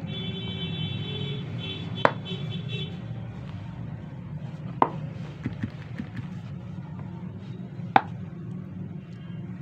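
Sharp plastic clicks and knocks from an HP 80A toner cartridge being handled, three loud ones roughly three seconds apart with a few lighter ticks between, over a steady low hum.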